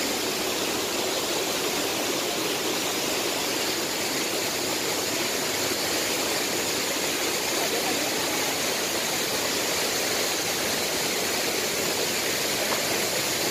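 Steady rush of falling water from Mantayupan Falls.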